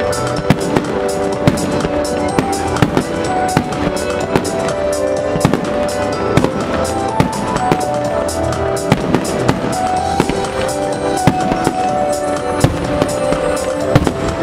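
Aerial firework shells bursting, with many sharp bangs and crackling at irregular intervals, over continuous loud music with a held melody.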